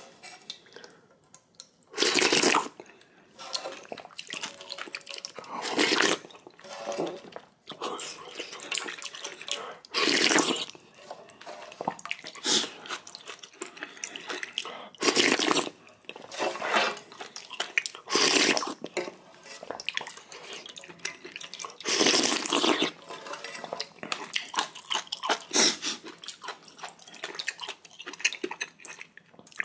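A person slurping instant ramyeon noodles in loud, wet slurps about every three to four seconds, with quieter chewing and mouth sounds between them.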